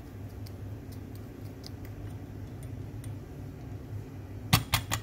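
A thin wooden stick stirring espresso grounds in a portafilter basket with a dosing funnel (WDT), giving faint light ticks over a steady low hum. Near the end comes a quick run of four sharp metallic clicks and taps as the metal portafilter and funnel are handled.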